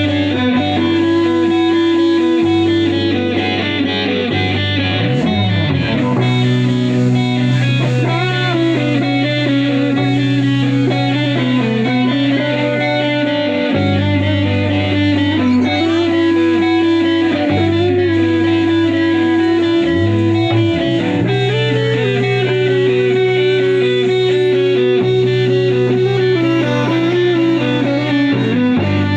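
A live band playing, with an electric guitar holding long notes and bending or sliding between them over a steady low bass part.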